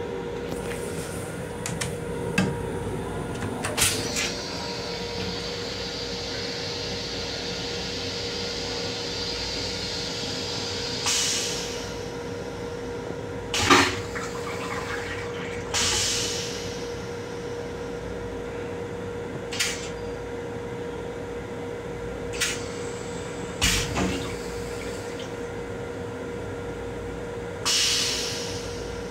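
Steady hum of an M7 railcar heard inside its restroom, with one steady tone running through it. It is broken by scattered knocks and rattles, the loudest about 14 seconds in, and by a few short hisses near 11, 16 and 28 seconds.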